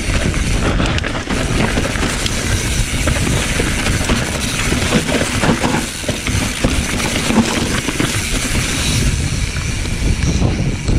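Capra full-suspension mountain bike riding fast down a singletrack covered in dry leaves: tyres rolling through the leaf litter and over roots, with a continuous clatter of chain and frame rattle. Wind rumbles on the microphone throughout.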